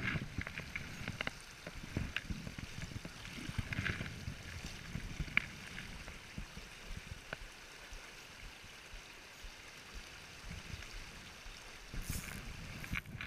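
Shallow creek riffle flowing steadily over stones, with scattered small clicks and knocks in the first few seconds.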